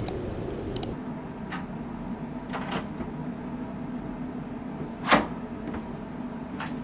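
A few scattered clicks and knocks, the loudest about five seconds in, over a steady low hum.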